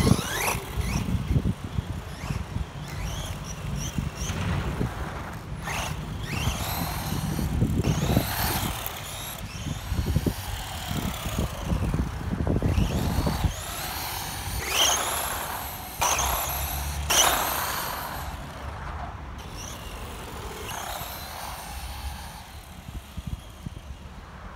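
ZD Racing MT-16 Raptors 1/16 4WD brushless RC monster truck driving, its brushless motor whining up and down in pitch as it repeatedly speeds up and slows down. It gets fainter near the end.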